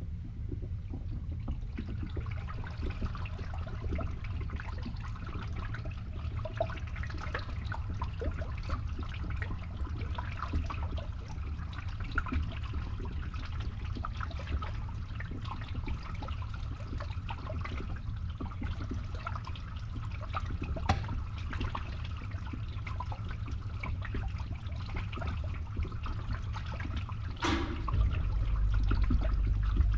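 Water draining and trickling inside a pipe, with scattered drips, over the steady low hum of a pump. Near the end a louder splash comes, and the hum grows louder.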